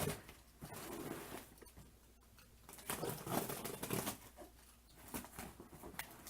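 A cardboard box being opened by hand, its flaps and packing rustling and scraping in irregular bursts with a few sharp clicks, loudest near the start and again about three seconds in.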